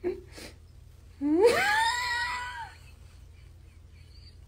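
A cat's long meow, starting a little over a second in: its pitch rises steeply, holds for about a second, then falls away.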